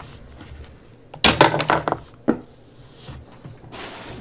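Handling noise of a marker and a card being moved on a tabletop: a cluster of clatters and rustles about a second in, a single sharp knock just after two seconds, and a short rustle near the end.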